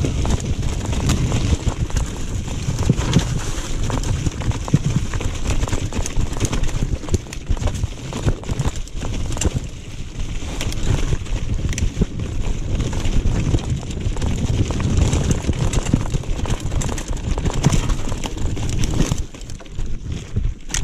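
Mountain bike ridden over a rough forest trail: continuous rumble and wind on the microphone, with constant rattling and clattering clicks from the bike and tyres.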